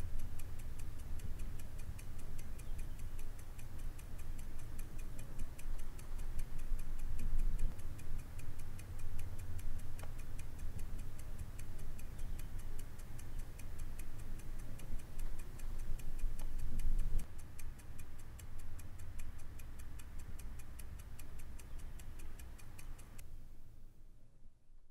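A clock ticking with a quick, even beat over a steady low rumble; both fade out near the end.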